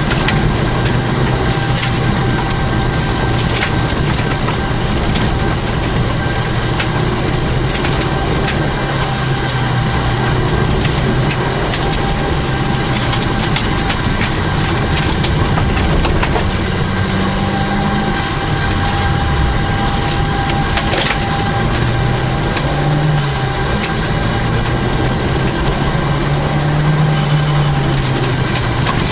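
Rally-prepared 1989 Toyota Celica GT4's turbocharged four-cylinder engine driven hard on a special stage, its pitch rising and falling with throttle and gear changes. Loud, dense road and gravel noise and rattling run over it throughout.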